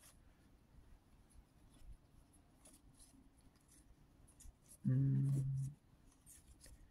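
Faint soft clicks and rubs of collectible game cards being slid apart and fanned out in the hands, with a short hummed "hmm" from a voice about five seconds in.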